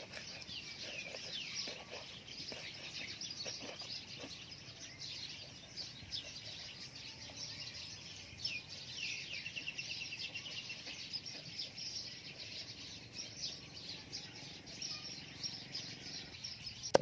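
Small birds chirping and calling, with a fast trill about nine seconds in. A few faint knocks of a knife on a wooden chopping board in the first few seconds.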